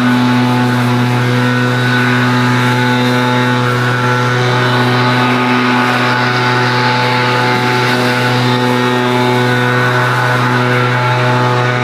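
Small engine of a handheld landscaping tool running steadily at high speed, holding one pitch without revving up or down.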